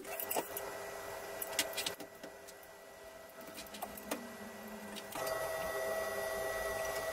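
A few light clicks and taps as steel tube pieces and a tape measure are handled on a workbench, over a steady electrical hum that gets louder about five seconds in.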